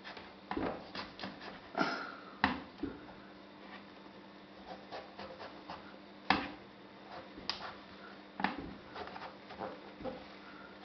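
Kitchen knife cutting and scraping out the flesh inside a piece of aubergine to hollow it out. It makes scattered light scrapes and clicks, with one sharp click about six seconds in.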